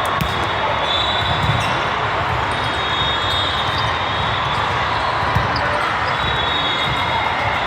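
Basketball game sound in a gym: the ball bouncing on the court over a steady crowd hubbub, with one sharper knock about five seconds in.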